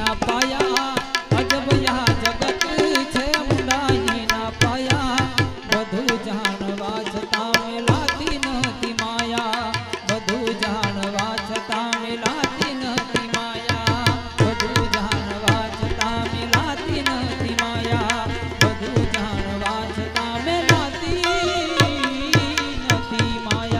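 Instrumental passage of a Gujarati bhajan: a harmonium melody over a steady tabla rhythm, with no singing.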